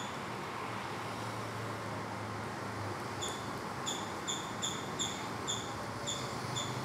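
A regular series of short, high chirps, about two or three a second, starting about three seconds in, over steady background noise.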